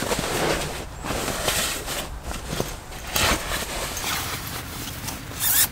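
Fabric rustling and swishing as a thick quilted mattress is folded and pushed into its canvas storage bag, in several uneven swishes with the loudest near the end.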